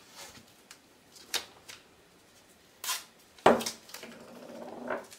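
Painter's tape being pulled off the roll and torn by hand: a few short crackling rips, with a sharp thump about three and a half seconds in.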